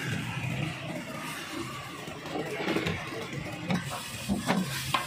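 Potato-lentil tikkis frying in oil on a large flat iron griddle (tawa), a steady sizzle, with several sharp metallic clicks and scrapes in the second half.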